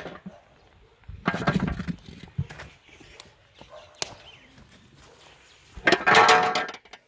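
Large aluminium cooking pot being lifted off a wood fire, with a rough scraping burst and a few sharp knocks of metal and wood. A loud, drawn-out call comes near the end.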